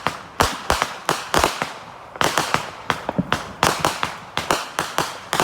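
Fireworks lit close by going off in a rapid, irregular run of sharp bangs, several a second.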